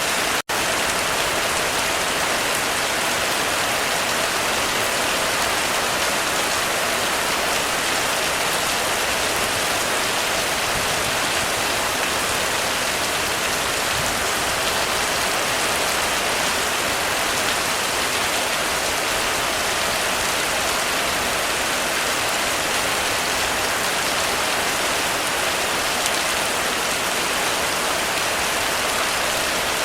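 Heavy rain falling steadily on a roof, a dense even hiss with no thunder, broken by a split-second dropout about half a second in.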